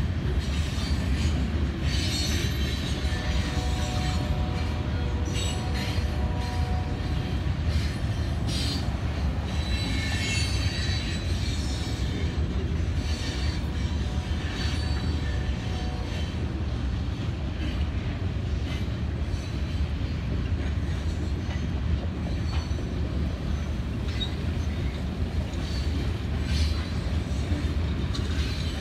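Freight cars of a Dakota, Missouri Valley and Western train rolling steadily past: a continuous low rumble of wheels on rail with scattered clicks over the joints. A faint wheel squeal comes in for several seconds in the first half.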